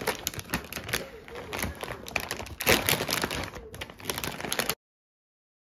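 A foil-lined plastic snack bag being opened and crinkled by hand: a run of crackles and rustles, loudest about two and a half seconds in, that cuts off suddenly near the end.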